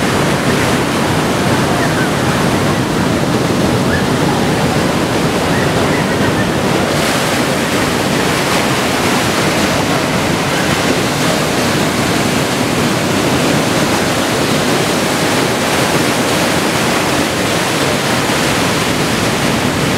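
Ocean surf breaking along a rocky shoreline: a steady, loud wash of waves with no pauses.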